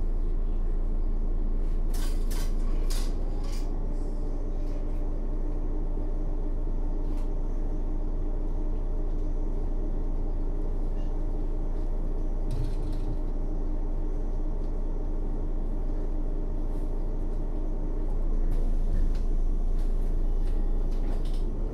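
Mercedes-Benz O 530 Citaro city bus engine idling steadily, with a few sharp metallic clicks about two to three seconds in and again near the middle. It gets slightly louder near the end.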